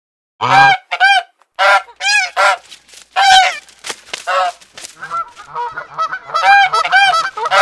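Domestic geese honking: a run of loud, repeated honks, becoming a denser chorus of several geese calling over one another from about five seconds in.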